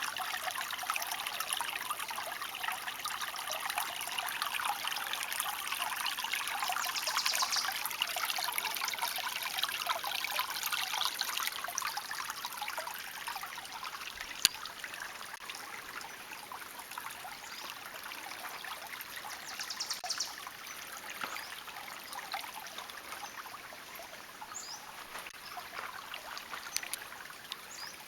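Creek water trickling and babbling steadily, easing a little in the second half, with a single sharp click about halfway through.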